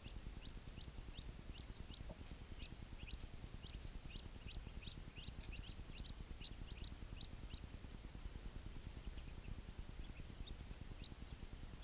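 Ducklings peeping: a quick run of short, high peeps, several a second, that thins out after about seven seconds, over a steady low rumble.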